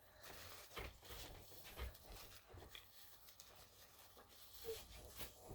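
Near silence: room tone with a few faint soft rustles and ticks.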